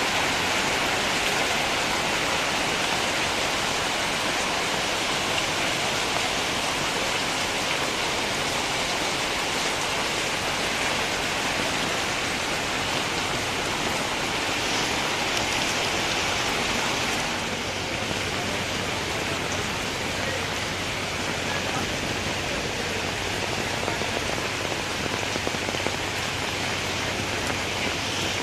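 Steady heavy rain falling, a dense even hiss that eases a little about two-thirds of the way through.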